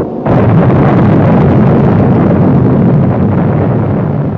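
Explosion on a 1950s film soundtrack: a sudden loud blast about a quarter second in, then a steady rumbling roar that eases slightly near the end.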